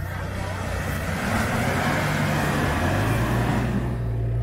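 Kia Sorento off-roader's engine revving under load as its mud tyres spin through a muddy ditch, with a rushing noise of wheelspin and thrown mud that builds and then eases. The engine note rises about three seconds in.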